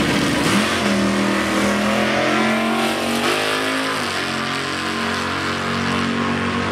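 Drag-race car, a first-generation Chevrolet Camaro, launching off the line and accelerating hard down the quarter-mile. The engine note climbs steeply and drops at a gear change about four seconds in.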